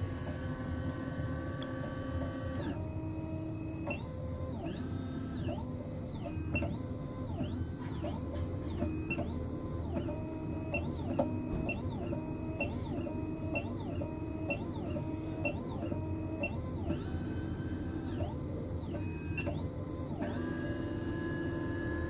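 SEC-E9 computerised key cutting machine milling the second side of a high-security car key blade. A steady motor hum runs under the whine of its stepper motors, which rises and falls in pitch about once a second as the carriage steps the cutter along the cuts, then settles to steadier tones near the end.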